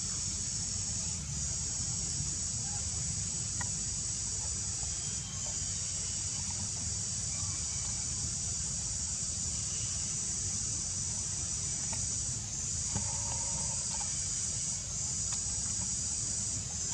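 Insects buzzing steadily in a high band, breaking off briefly about four times and starting again, over a constant low rumble.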